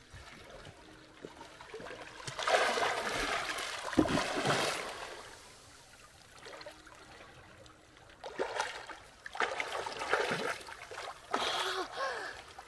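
Water splashing and trickling in two bursts of a few seconds each, with a dull knock about four seconds in.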